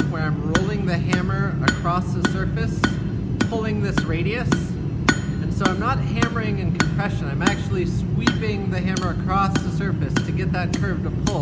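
Hand hammer striking a hot mild steel bar on an anvil face in a steady rhythm, a little under two blows a second, to draw out a flat taper.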